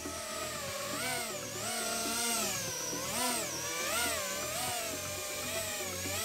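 Brushless motors of a GEPRC Smart 35 3.5-inch FPV quadcopter whining with their propellers, the pitch rising and falling in a series of short swells as the throttle is worked.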